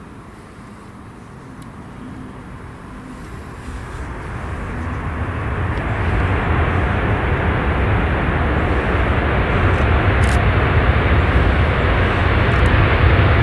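Jet airliner engines: a deep roar that builds over a few seconds, then holds loud and steady.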